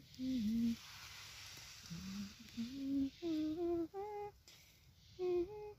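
A person humming a little tune, a string of short held notes with small pitch glides and pauses between them.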